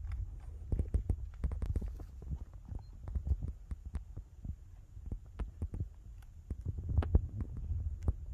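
Wind buffeting the microphone: a low, irregular rumble with many scattered clicks and taps of handling noise.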